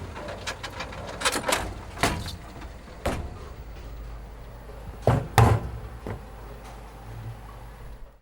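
A series of knocks and thuds, about six in all, the loudest two close together about five seconds in, over a steady low hum.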